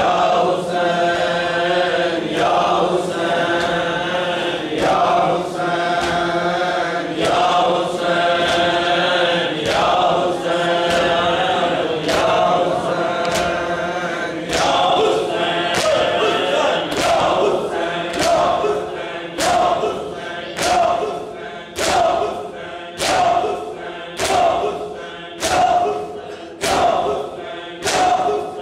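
A crowd of men chanting a mourning lament (noha) in unison while beating their chests in time. Sharp slaps of hands on bare chests fall about once a second. From about halfway through, the slaps stand out above the singing.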